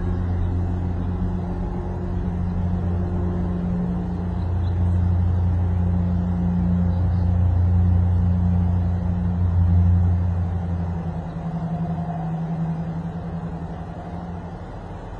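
A motor vehicle's engine rumbles nearby, a low steady drone that builds to its loudest about two-thirds of the way through and then fades away.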